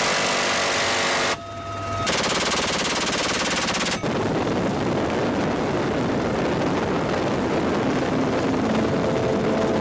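A helicopter's door-mounted rotary minigun firing two long continuous bursts, with a short break about a second and a half in. After a sudden change about four seconds in, steady machine-gun fire and helicopter noise run on.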